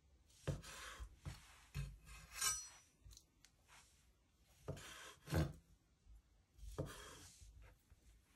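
Kitchen knife slicing through raw tuna steak and meeting a bamboo cutting board: several separate cuts, each a short rasping stroke ending in a light knock on the wood.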